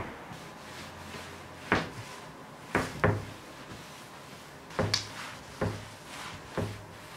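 Wooden wardrobe doors being opened and shut: a series of about seven sharp knocks and clunks, several carrying a short low thud.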